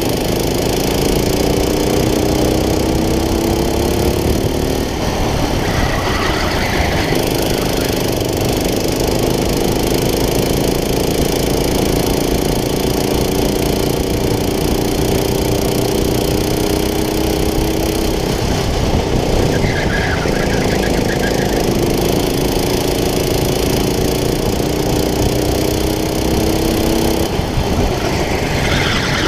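Go-kart engine heard from on board under racing load, its pitch climbing steadily along each straight and falling away three times as the kart slows for corners: about 5 seconds in, about 18 seconds in and near the end. A short, higher-pitched scrubbing noise comes with each slowdown.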